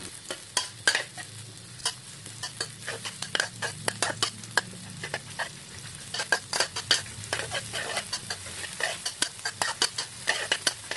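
Sliced shallots sizzling in vegetable oil in a metal wok, stirred with a metal spatula that clicks and scrapes against the pan again and again.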